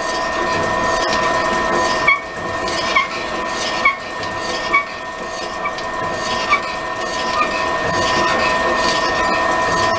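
Drill press driving a fly-cutter that opens up the bore in an ironwood neck bearing. The machine hums steadily under cut, with a short sharp chirp about once a second.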